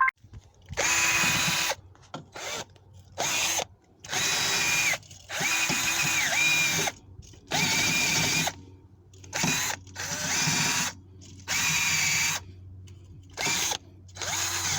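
Electric drill fitted with a wire brush, run in about a dozen short bursts of roughly a second each as it scrubs rust and dirt off the car's wheel hub. Its motor whine dips in pitch whenever the brush is pressed on.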